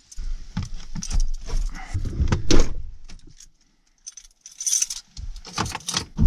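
A bunch of keys jangling and clicking in the hands, among knocks and rustling from getting into a pickup cab. The jingles come as short sharp clicks, loudest near the end.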